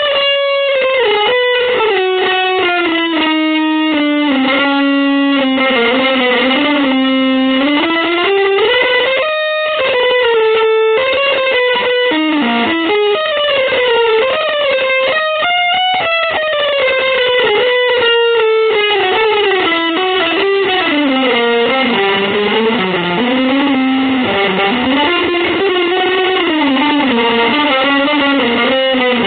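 Electric guitar playing a single sustained melodic line that slides and bends up and down in pitch, without pause.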